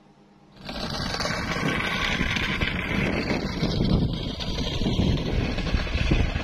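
Wind buffeting the microphone outdoors, a loud rough rumble that starts abruptly about half a second in after a moment of near silence.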